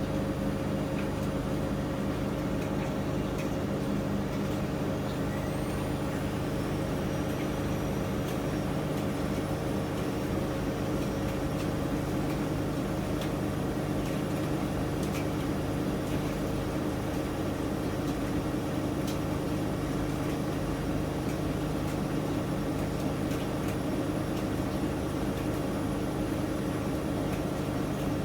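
Miele MedicWash W2585 washing machine running with a steady motor hum and drum noise, with a faint high whine that rises about five seconds in and then holds steady.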